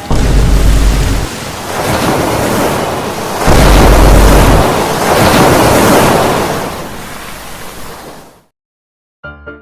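Loud roaring, rushing noise like a storm or surging water, with two deep rumbles, one at the start and one about three and a half seconds in. It fades and cuts off abruptly about eight and a half seconds in, and music starts just before the end.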